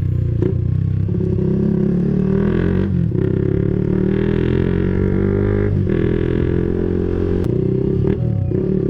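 Honda CBR150R single-cylinder engine accelerating under way, its pitch climbing and then dropping back sharply at gear changes, three times. Background music plays over it.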